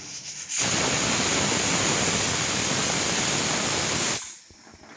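Pressure cooker whistle: steam jets out past the lifted weight valve in a loud, steady hiss with a high edge for about three and a half seconds, then cuts off suddenly. This is the cooker venting at full pressure, one of the whistles counted to time the cooking.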